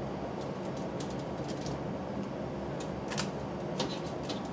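Scattered light clicks and crinkles of raw asparagus spears being turned by hand on a foil-lined baking sheet, over a steady low hum.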